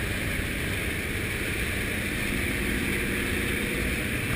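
Steady drone of a propeller aircraft's engine and rushing air, heard from inside the cabin.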